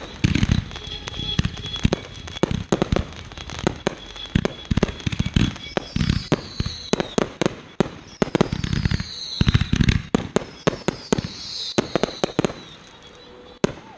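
Fireworks going off: a dense run of sharp crackling bangs with deeper booms every few seconds, and several whistles that fall in pitch. The barrage thins out near the end to one last bang.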